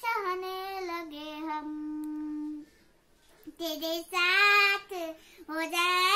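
A young girl singing: a long held note about two seconds in, a short break near the middle, then louder singing.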